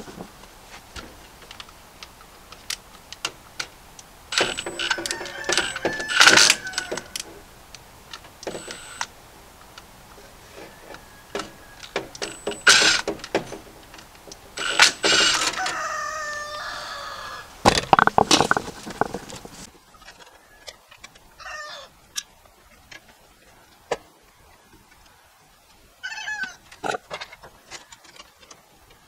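Hand work on a residential breaker panel: scattered clicks, taps and metallic clatter of breakers, wires and tools, busiest in the first two-thirds. Birds call in the background, more clearly in the quieter last third.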